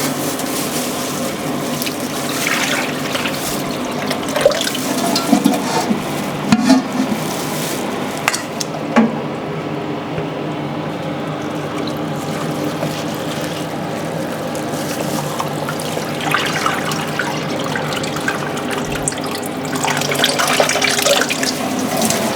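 Water running steadily, with a few short knocks and clatters.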